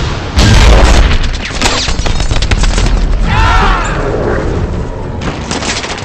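Movie battle sound effects: a heavy explosion about half a second in, followed by bursts of rapid machine-gun fire, with more gunfire near the end.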